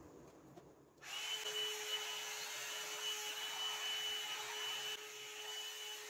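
Handheld hot-air brush dryer switched on about a second in, then running steadily: a rush of blown air with a steady high whine and a lower hum from its motor.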